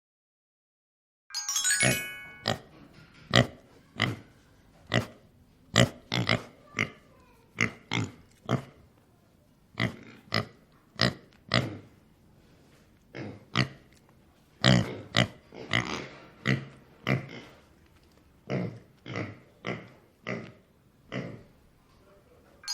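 Domestic pigs grunting and oinking, many short grunts coming one or two a second, after a short chime about a second in.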